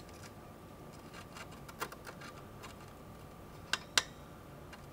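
Small clicks and taps of metal tweezers and a soldering iron tip against a circuit board as a capacitor is desoldered, with two sharper clicks about four seconds in. A faint steady high whine sits underneath.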